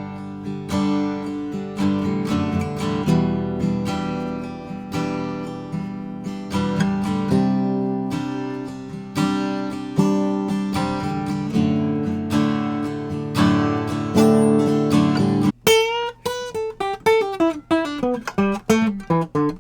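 Taylor Big Baby acoustic guitar strummed in chords, recorded through a Rode VideoMicro on-camera microphone. The strumming changes about three-quarters of the way through, after a brief break, to a quicker, choppier pattern.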